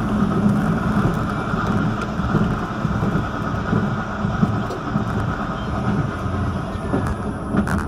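Vityaz-M low-floor tram running along street track, a steady rolling and motor noise with a few faint clicks.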